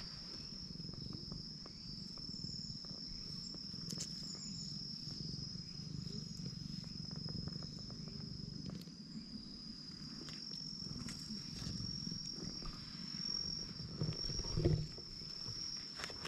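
A tabby cat being stroked by hand close to the microphone: a low steady rumble with rustling and a few soft knocks, under a steady high-pitched insect trill.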